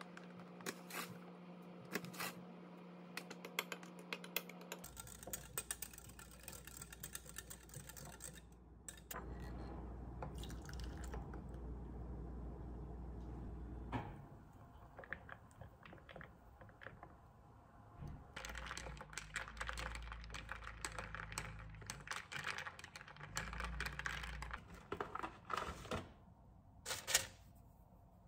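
Quiet kitchen handling sounds: many small taps and clicks of glassware and utensils, with cream being poured into a glass of coffee.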